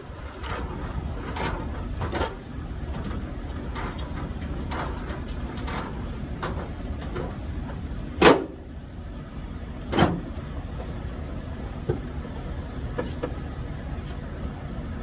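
Steady low vehicle rumble under a run of short knocks, like footsteps, at about two a second. Just past halfway come two loud bangs about a second and a half apart, then a few fainter knocks.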